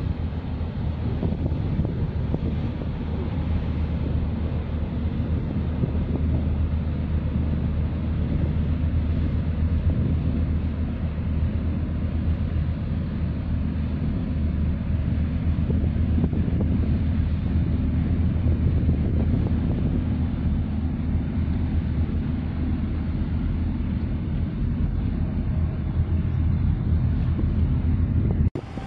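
Wind buffeting the microphone, a steady low rumble, cutting off abruptly near the end.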